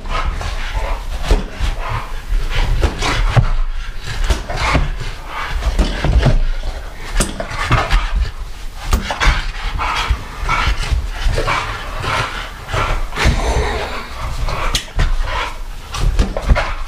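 An Old English Bulldog and a French Bulldog panting hard as they jump and snap at a balloon, with irregular knocks and thumps of paws and of the balloon being struck.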